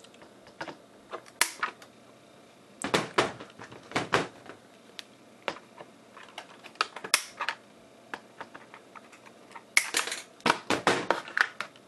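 Irregular sharp clicks and snips of diagonal cutters cutting the twisted tie wires that hold a model to its cardboard base, with knocks from the cardboard being handled; the clicks come in clusters about three seconds in and again near the end.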